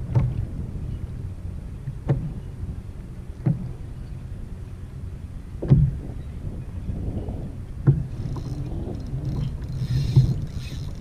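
Low thumps every couple of seconds over a steady low rumble of wind and water, as waves slap a plastic kayak hull. From about three seconds before the end, a fishing reel's drag buzzes and clicks as a fish, likely a bluefish, strikes the trolled plug and pulls line.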